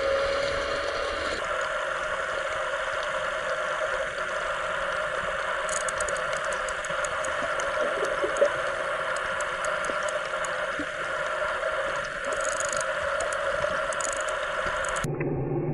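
A steady engine drone heard underwater, with scattered faint high ticks in the middle and near the end.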